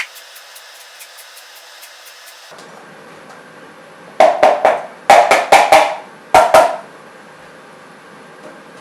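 Lemon being zested on a metal grater: faint quick ticks at first, then about four seconds in, three loud groups of short strokes.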